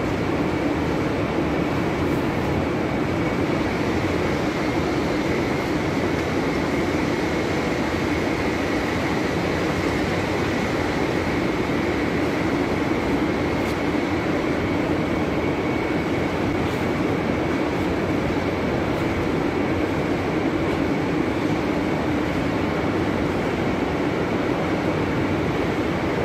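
Steady drone of stone-factory machinery running, an even rumbling noise with a faint high tone held above it.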